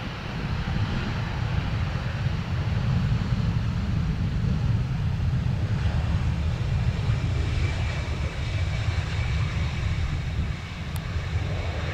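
Jet airliner engines rumbling steadily, with a faint high whine coming in over the second half as the aircraft draws closer. Wind buffets the microphone throughout.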